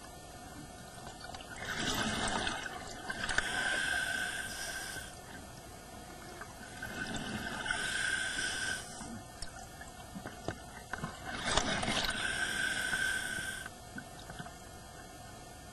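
A scuba diver's regulator breathing, heard through an underwater camera housing. Hissing inhalations, each with a thin steady whistle, alternate with noisy rushes of exhaled bubbles, about three breaths in all.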